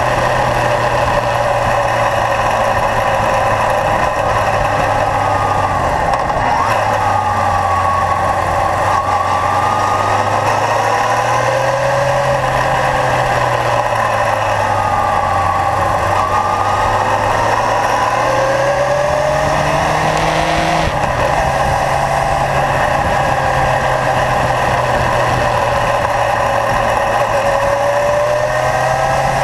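Kawasaki Zephyr's air-cooled inline-four engine running at road speed, heard from on the bike under heavy wind rush. The engine note rises and falls with the throttle, and drops sharply twice at gear changes, about six seconds in and about twenty-one seconds in.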